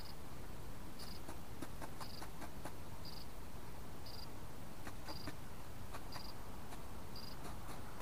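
Light, scattered clicks of a pheasant pecking at feed, with a short high peep repeating about once a second.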